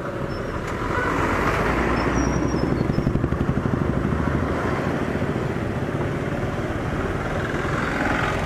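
Motorcycle engine and road noise as heard from the moving bike, in town traffic. It swells from about a second in as oncoming heavy vehicles, a bus and a tanker lorry, pass close by.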